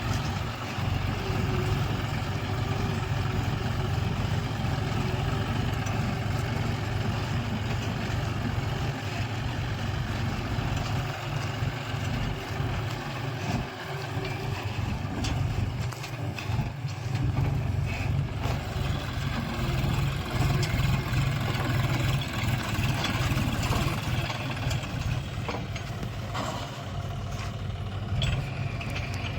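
Diesel engine of a JCB 3DX backhoe loader running steadily under work while digging and loading mud, with a few short knocks near the end.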